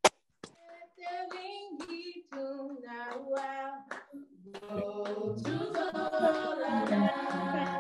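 A hand clap, then a worship song sung by voice: singing starts about a second in and grows fuller and louder about five and a half seconds in.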